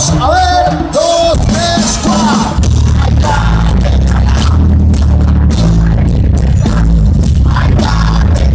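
Live heavy metal band playing loud: a sung vocal line over the first two seconds or so, then the band carries on with heavy bass, distorted guitar and regular drum hits.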